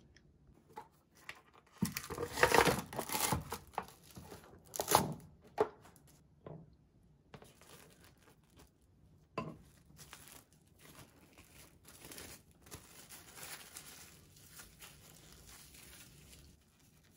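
Plastic cling film pulled and torn from its roll, loudest in the first few seconds, then softer continuous crinkling of the film as rice is scooped onto it and a rice ball is wrapped and pressed by hand.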